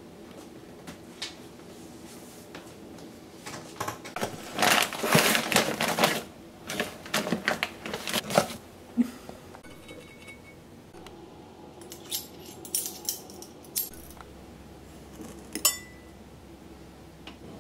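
A paper flour bag rustling and crinkling in loud bursts as it is opened. Then several sharp clinks of stainless-steel measuring cups and spoons.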